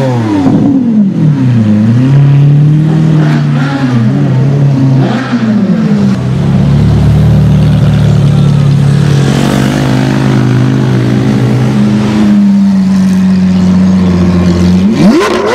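Supercar engines: a Lamborghini Aventador's V12 revving in rising and falling blips as it pulls away, then a steady low engine drone as cars crawl past close by, and a sharp rising rev near the end.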